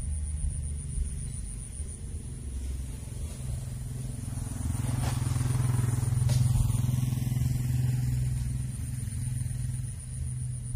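A motorcycle passing by: its engine hum grows louder from about three seconds in, is loudest a little past the middle, then fades away.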